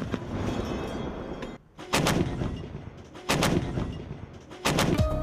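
Towed anti-aircraft autocannon firing three short bursts of rapid shots, about a second and a half apart, each echoing away before the next.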